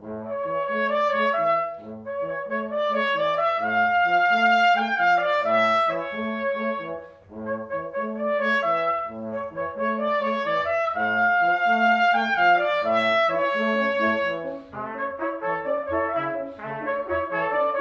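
Live brass quintet playing: a trumpet melody with French horn over a bouncing, steadily repeated low line in the tenor trombone. The phrases dip briefly about every five to seven seconds.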